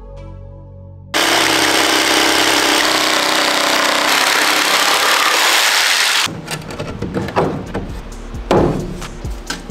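Corded jigsaw cutting through an old 2x6 board: a loud, steady saw noise that starts abruptly about a second in and cuts off about five seconds later. After it, a few sharp knocks of wooden boards being set in place.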